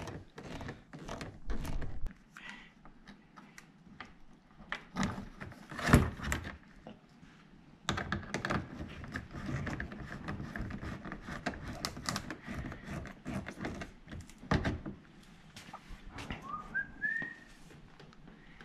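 Hand work under a car: irregular clicks, scrapes and knocks from a screwdriver driving self-tapping screws into the plastic front splitter and air dam. There is one louder thunk about six seconds in, and a few short rising whistle-like squeaks near the end.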